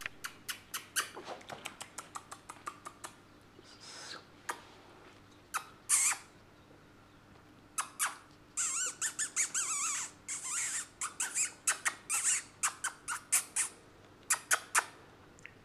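A chihuahua puppy's teeth and claws click and tap on the plastic of a mobile phone in a quick run at the start. From about halfway through come strings of high, squeaky puppy growls and yips with a wavering pitch.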